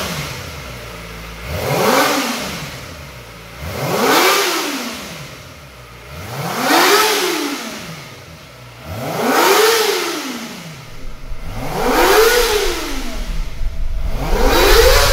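Kawasaki ZX25R's 249 cc inline-four engine, on its standard exhaust, being free-revved on the stand: about six throttle blips a couple of seconds apart, each rev climbing high and falling back toward idle.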